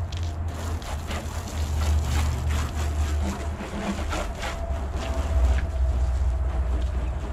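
Wind buffeting the microphone with a heavy rumble, over the hiss of a garden hose spray nozzle rinsing water onto a car's bodywork.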